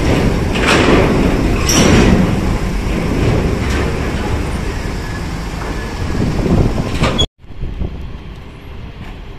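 Large diesel bus engine running loud and close, with a few short sharp sounds over it. The sound cuts off abruptly about seven seconds in, leaving a quieter steady rumble.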